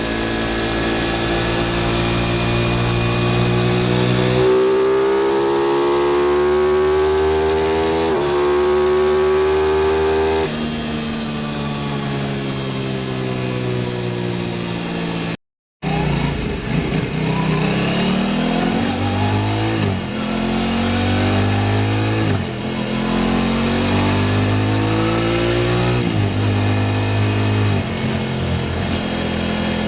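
Aprilia RS660's parallel-twin engine under way, its pitch rising and stepping down with gear changes. After a brief break halfway, it accelerates hard through several upshifts in quick succession.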